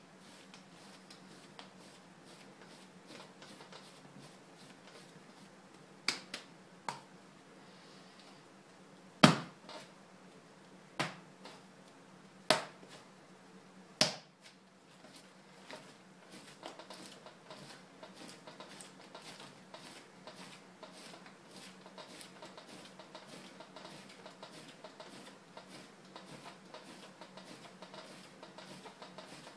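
Hands spiral-wedging a lump of clay on a wooden workbench: soft rhythmic thuds and rubs of the clay, about two a second, with a handful of sharp slaps in the middle, the loudest about nine seconds in.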